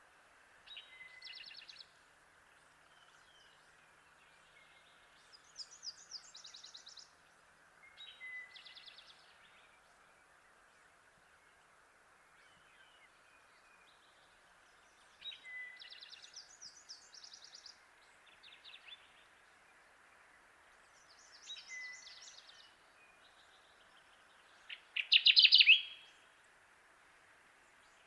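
Kirtland's warbler singing, repeating its short song phrase about seven times a few seconds apart, the loudest near the end, over a steady faint background hiss.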